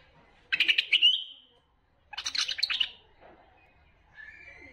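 Bulbul song: two loud chattering phrases about a second apart, the first ending in a drawn-out whistle, then a softer whistled note near the end.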